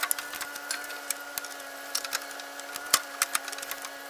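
A replacement radiator being worked into place in the front end of a Jeep Wrangler: irregular light clicks and knocks of its plastic tanks and frame against the mounts as it slides into its notches, over a steady hum.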